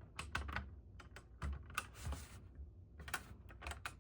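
Small plastic LEGO pieces clicking and clattering as they are handled and pressed into place, a dozen or so irregular light clicks.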